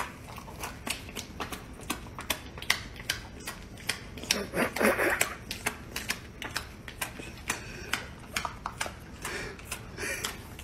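A dog with a slice of peanut-butter bread makes quick, irregular clicking sounds, several a second. A short, louder voice-like sound comes about halfway through.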